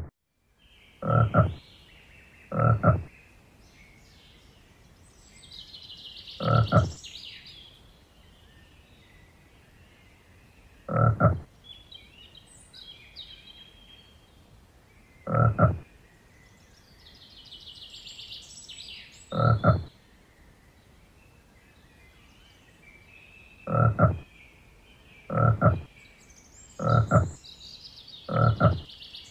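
A frog croaking with a deep, low call: ten loud croaks about half a second each, spaced irregularly, the last four coming close together near the end. Faint high chirping sounds between them.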